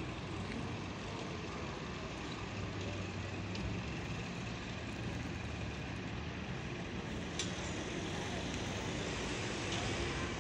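Bus station ambience: buses running with a steady low engine hum, and a hiss that swells near the end.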